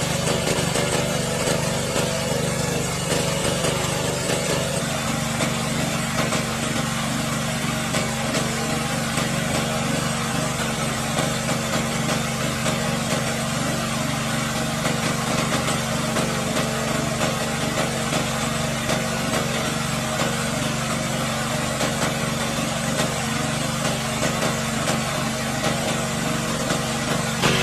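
A small engine running steadily, a constant hum with a slight change in its tone about five seconds in.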